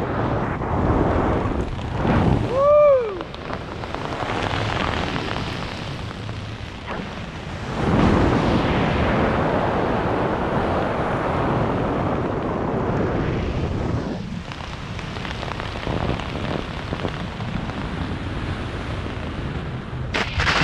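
Wind rushing over the camera microphone of a skydiver flying under an open parachute canopy. It grows stronger about eight seconds in. About three seconds in there is a brief high tone that rises and falls.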